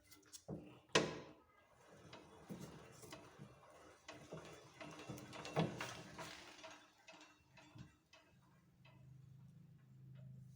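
Antique Wertheim sewing machine's metal mechanism clicking and knocking irregularly as it is handled, with a low steady hum in the last two seconds.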